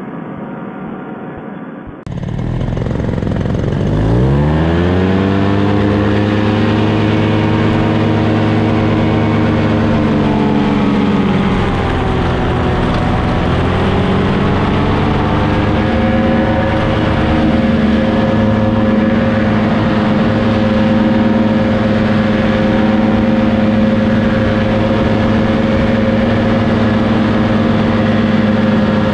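Paramotor trike engine and propeller revving up hard, the pitch climbing steeply over about two seconds, then held at high throttle for the takeoff and climb. The revs dip briefly about twelve seconds in and come back up to a steady drone. The first two seconds hold a duller, muffled engine sound.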